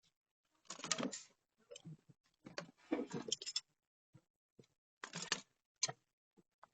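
Handling noise of tools and parts: three spells of rustling and clattering, about a second in, around three seconds in and near five seconds in, with a few sharp clicks between them.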